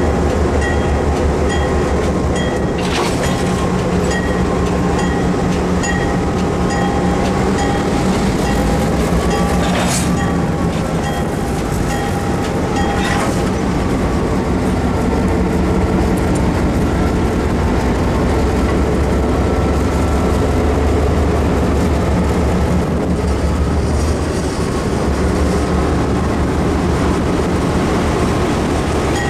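EMD F7B diesel locomotive units pulling a passenger train past at close range: a steady diesel engine drone with the wheels rumbling over the rails and a few sharp clicks.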